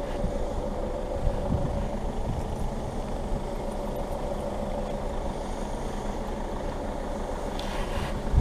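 Parked police car's engine idling steadily, an even low hum.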